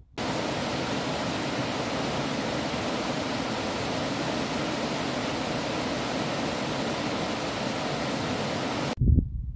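Small rocky cascade on a forest creek: white water rushing steadily over rocks. It cuts off abruptly near the end.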